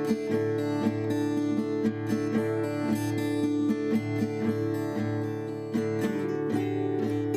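Background music: acoustic guitar strumming steadily, with a bright plucked melody over a regular beat.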